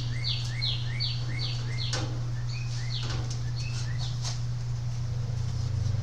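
A small bird chirping in a quick series of short, falling two-part notes, about three a second for the first two seconds and then more sparsely, over a steady low hum, with a few sharp taps or clicks.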